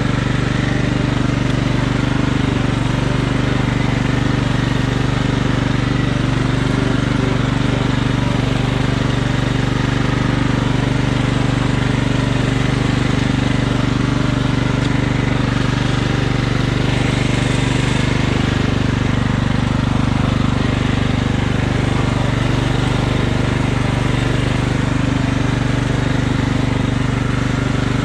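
Riding lawn mower engine, cutting deck removed, running steadily at an even pitch.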